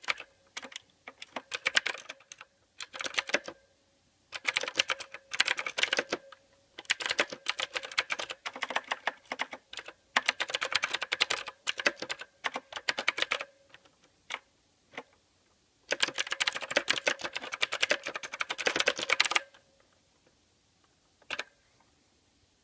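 Mechanical keyboard typing in bursts of fast keystrokes with brief pauses between them. The typing stops about three-quarters of the way through, and one last short click comes near the end.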